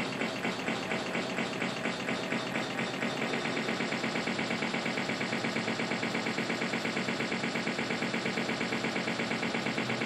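A very short slice of a fart sound effect looping over and over, making a rapid, even stutter of several pulses a second.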